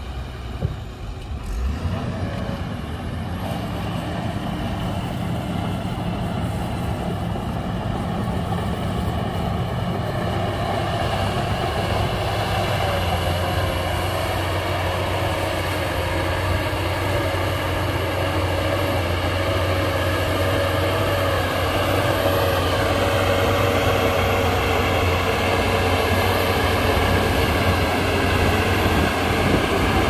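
Shantui crawler bulldozer's diesel engine running steadily under load while pushing dirt, growing slowly louder. A single short knock sounds about a second in.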